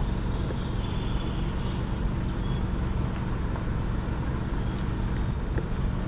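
A steady low rumble fills the sound, with a few faint, short, high bird notes now and then in the forest.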